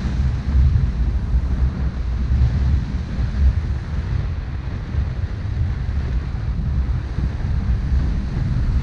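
Strong wind buffeting the camera microphone in an uneven low rumble, over the steady wash of sea waves breaking on rocks.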